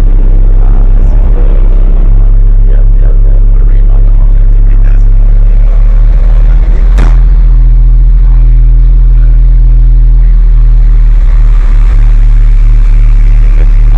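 Car audio subwoofers playing deep bass notes at very high volume, overloading the recording; the bass shifts to new notes about two seconds in and again about seven seconds in.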